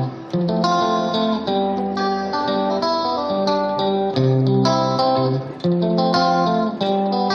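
Background music led by plucked guitar, with notes changing in a steady pattern.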